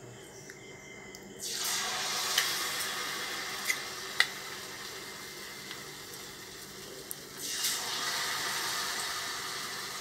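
Batter-coated potato pieces dropped into hot oil for deep-frying: the sizzling starts about one and a half seconds in, with a few sharp pops, and swells again a little after seven seconds as another piece goes in.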